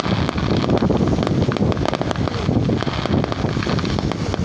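Wind buffeting the microphone as a steady low rumble, with many sharp crackles and pops from a fireworks display.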